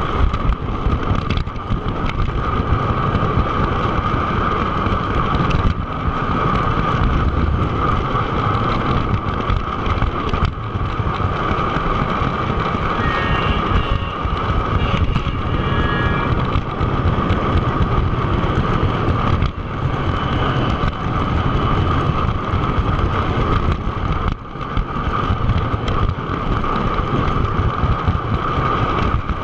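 O scale model train running on its track, heard close from on board: a steady rolling rumble with a constant whine, dipping briefly every few seconds. Faint higher tones come in for a couple of seconds around the middle.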